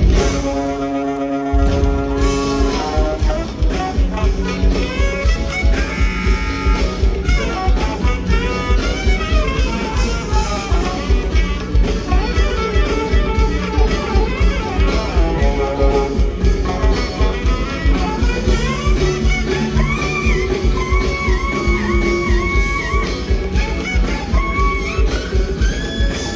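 Live rock band with a saxophone playing the lead melody over electric guitars, bass and drums, on a steady driving beat. The bass and drums drop out for about a second near the start, then come back in.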